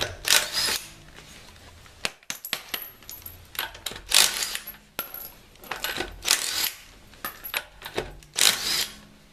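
Cordless impact wrench spinning 21 mm lug nuts off a minivan's rear wheel in about four short bursts, each a brief whine that winds up and down. Sharp metallic clinks come in between.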